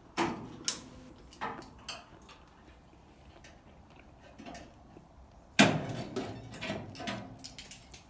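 Metallic clanks and knocks from steel car body panels and tools being handled: a few sharp single knocks near the start, then a louder spell of clattering and rattling about five and a half seconds in.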